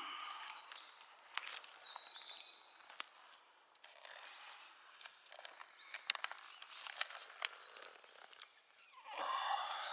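A songbird singing short, high, stepped phrases in the first two or three seconds and again near the end, with light crackles and rustles on dry forest litter and twigs in between and a louder rustle near the end.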